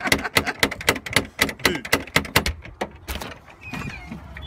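A wooden door being rattled and banged in a quick, uneven run of about six knocks a second, as a hand shakes the twig wreath hanging on it against the door. The knocking lasts about three seconds, then thins out and fades.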